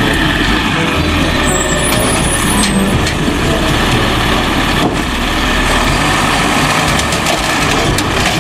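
Garbage truck engine running loudly and steadily, with a hissing rush over it; it cuts off abruptly at the end.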